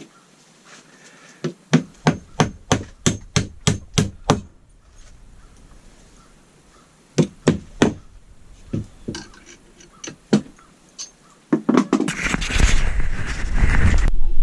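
A quick run of about ten sharp knocks, roughly three a second, then a few scattered knocks. Near the end comes a loud, low rumbling noise.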